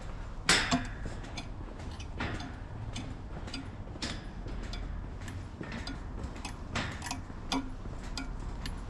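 Footsteps of someone walking, heard as irregular clicks and knocks over a low steady rumble.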